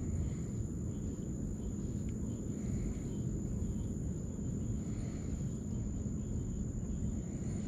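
Night insects droning on one steady high pitch over a low continuous rumble.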